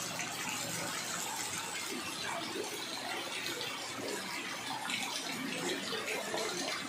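Heavy rain falling onto a flooded street, a steady splashing hiss of drops hitting standing water.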